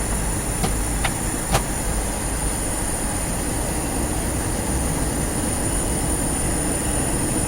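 Steady cabin noise inside a Douglas DC-8 airliner: the drone of the engines and airflow, with a thin high whine over it. Three light clicks come in the first two seconds.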